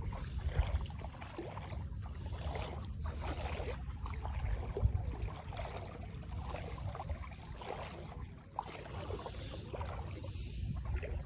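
Water sloshing and splashing irregularly, over a steady low rumble.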